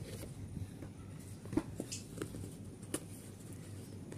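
Cardboard packaging of an earbuds box being handled: the inner box slid out of its printed sleeve and its lid lifted off, giving a few soft taps, clicks and scrapes of card.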